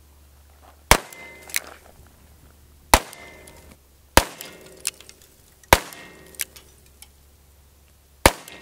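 .357 Magnum revolver fired five times, the shots one to two and a half seconds apart. Some shots are followed about half a second later by a fainter crack.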